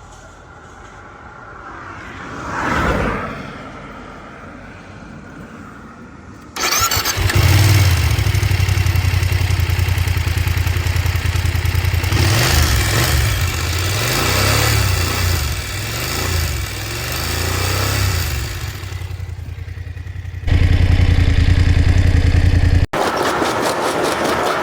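BMW F 750 GS / F 850 GS parallel-twin motorcycle engine catching suddenly about six and a half seconds in and running noisy and harsh, its revs rising and falling. A brief swell of sound comes about three seconds in, and the engine sound changes abruptly twice near the end.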